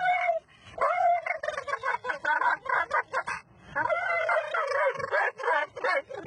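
Dog making long, pitched howling and whining cries over and over, the excited vocal reaction of a dog that has just been asked whether it wants to go to the park.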